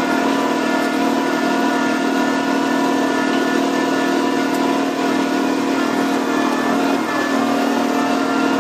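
Electric tractor running as it creeps along, a steady motor hum that holds one even pitch throughout.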